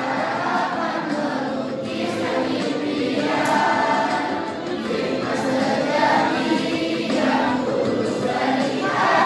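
A large group of teenage students singing a song together as a choir of many voices.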